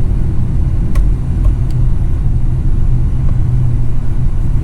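Steady low rumble of a moving car, engine and road noise heard while riding in it.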